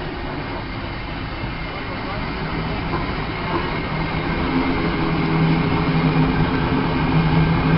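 Steam road roller driving past, its running rumble and clatter growing louder as it comes near. A steady low hum comes in about halfway and builds.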